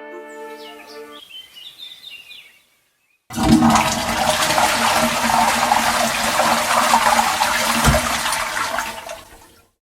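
The end of a brass fanfare, then faint bird chirps. About three seconds in, a toilet flushes with a loud rush of water for about six seconds, then cuts off.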